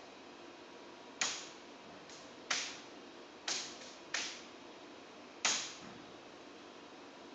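Motor-driven aluminium stage turntable with a plywood deck, rotating on its wheels and giving off sharp creaking snaps, about six at irregular intervals. The creak is a fault that the crew has not traced: tightening the bolts between the pie-shaped sections and lifting the wood have not cured it.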